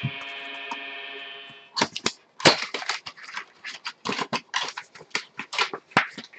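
Foil trading-card pack wrapper crinkling and tearing as the pack is opened and handled: a run of sharp, irregular crackles. Before that, a steady held chord of background music cuts off about two seconds in.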